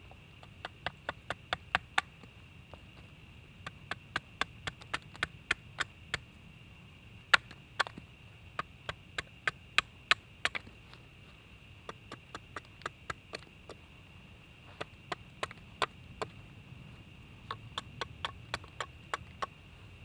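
Small axe hewing a split wooden board held upright: runs of quick, sharp chopping strikes, several a second, with short pauses between runs.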